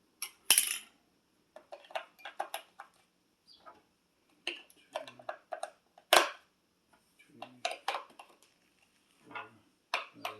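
AA batteries clicking and clattering as they are handled and pressed into the plastic battery compartment of a remote-control car's controller, with a series of sharp clicks, the loudest about half a second in and about six seconds in.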